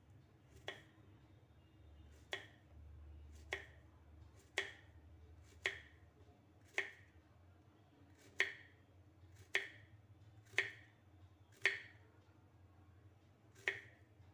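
Knife slicing through a peeled raw nendran plantain on a wooden cutting board, each stroke ending in a sharp tap of the blade on the wood, about one cut a second.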